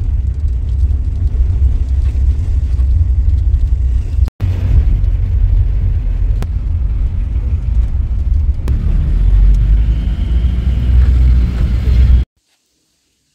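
Loud, low engine and road rumble inside a moving vehicle's cabin. It drops out for an instant a little past four seconds in and cuts off suddenly near the end.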